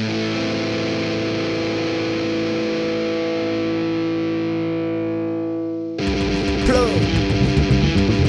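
Music: a distorted electric guitar chord rings out and is held for about six seconds, then a heavy metal riff with drums comes in.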